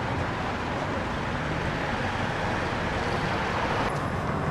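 Steady rushing hum of road traffic.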